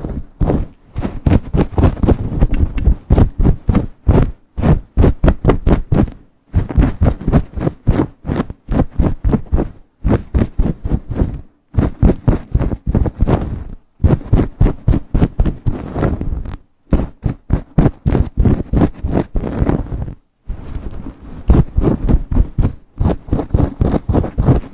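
Long acrylic nails scratching fast through hair and over the scalp close to the microphone: rapid rubbing, scratching strokes, several a second, in runs broken by short pauses.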